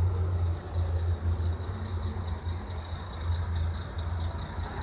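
MAN M2000 concrete mixer truck's diesel engine idling steadily, not making too much noise, with a faint steady high whine over the low rumble.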